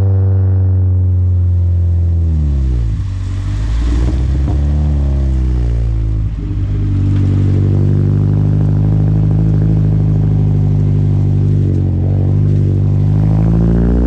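Mazda MX-5's four-cylinder engine heard right at the tailpipe of a baffle-less aftermarket exhaust while driving. The note falls as the car slows, breaks up twice off the throttle with a few crackles, then settles into a steady drone that rises a little near the end.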